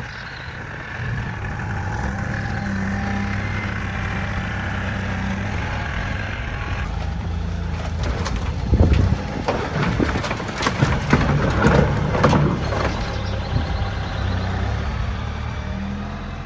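Kioti CK3510 compact tractor's diesel engine running steadily, with a burst of loud clattering and banging about halfway through as the load of old shed doors is set down.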